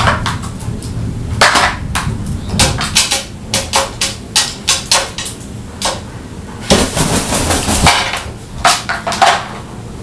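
A crow's beak pecking and knocking at the hard plastic pieces of a slow-feeder puzzle board on a glass tabletop: an irregular run of sharp taps and clicks, coming thickest about seven seconds in.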